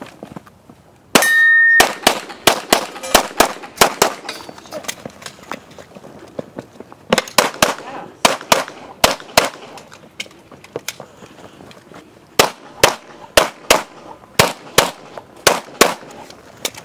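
An electronic shot timer gives one short start beep about a second in. A handgun then fires rapid strings of shots, several a second, in three volleys with pauses of a few seconds between them.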